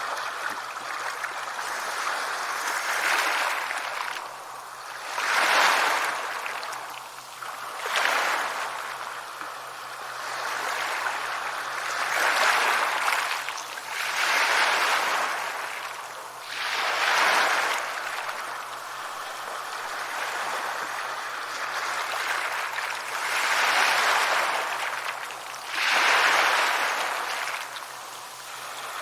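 Ocean waves breaking and washing up the shore, the surf swelling and falling back about every two to three seconds.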